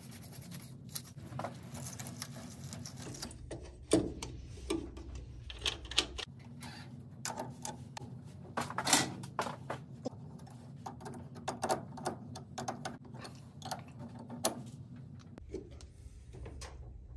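Irregular metallic clicks and taps of a wrench and brass battery-switch hardware being fitted and tightened on a car battery's post terminal, over a steady low hum.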